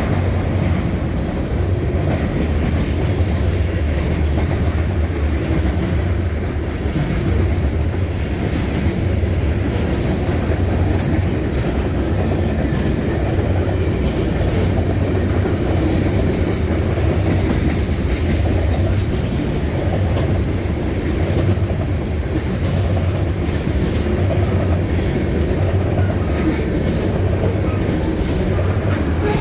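Freight train rolling past: a steady rumble of railcars, with wheels clicking over the rail joints.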